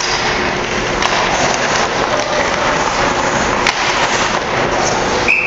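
Ice hockey play in a rink: a steady wash of skating and crowd noise, broken by a few sharp clacks of sticks and puck. Near the end a referee's whistle starts with a single long, steady note, blowing the play dead.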